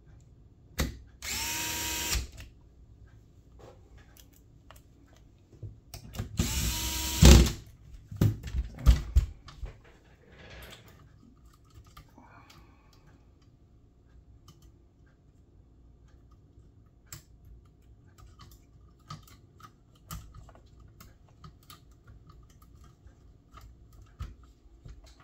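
Metabo cordless screwdriver running in two short spurts of about a second each, about a second in and again about six seconds in, driving screws into the fuser unit. After that come scattered light clicks and knocks of the fuser's parts being handled and fitted.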